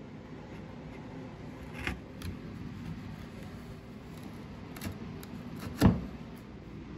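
Wood chisel paring out the corners of a router-cut bowtie inlay recess: scattered sharp clicks and snaps as the edge cuts and the chips break free, with the loudest knock near the end. A steady low hum of shop background runs underneath.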